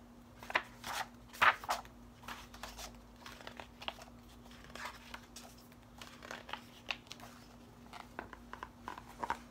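Paper pages of a hardcover picture book flipped quickly one after another, a run of short rustles and flaps, loudest in the first two seconds.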